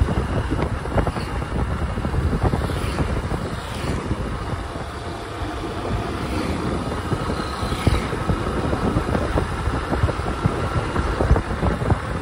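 Riding a motorcycle along a road: steady engine and road noise, with wind buffeting the microphone.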